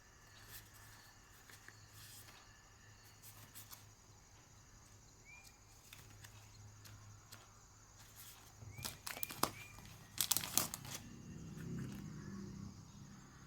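Packaging crinkling and rustling as it is handled, in a cluster of sharp crackles about nine to eleven seconds in, over a faint steady hum. A few short rising chirps are heard, three of them close together just before the crackling.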